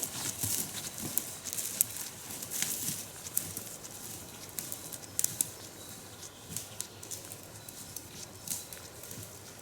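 Footsteps of a person walking over the forest floor, a run of irregular crisp crunching steps.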